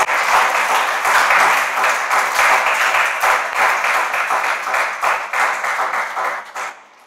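Audience applauding, many hands clapping densely; the clapping thins and fades out near the end.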